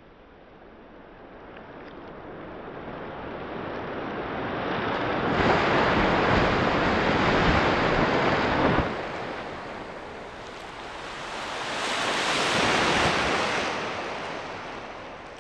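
Surging, surf-like water noise that builds up, stays loud for about three seconds, cuts off abruptly, then rises and fades once more.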